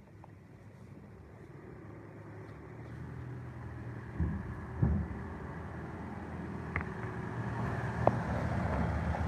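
A motor vehicle's engine running and growing steadily louder as it approaches, with two dull thumps about four and five seconds in and a sharp click near the end.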